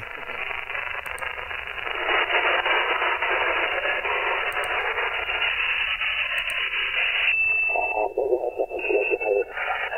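Shortwave receiver audio in upper-sideband mode on the 27 MHz CB band: steady band-noise hiss while the receiver is tuned across the band. Near the end a brief steady whistle gives way to garbled voice-like signals as it lands on transmissions.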